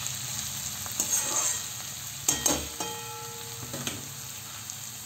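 Onion, capsicum and spring onion sizzling in hot oil on high heat while being stir-fried, a steady hiss with a spatula scraping and knocking against the pan a few times; one knock near the middle leaves a short metallic ring.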